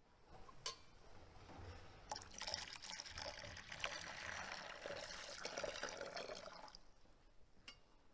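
Water poured from a metal jug into a stone baptismal font, a thin stream splashing into the water in the bowl. A light click comes first; the pouring starts about two seconds in and stops about a second before the end.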